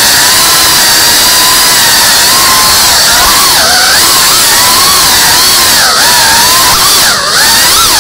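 Whoop FPV drone's small motors and ducted propellers whining loud and close, the pitch wavering and dipping with throttle changes several times, most sharply about seven seconds in.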